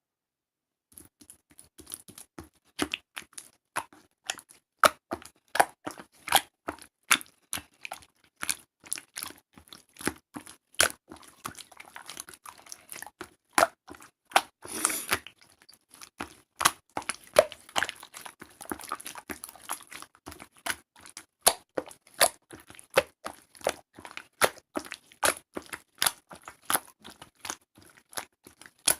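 Slime being squished and kneaded by hand, giving a steady run of sharp sticky clicks and pops, two or three a second, starting about a second in.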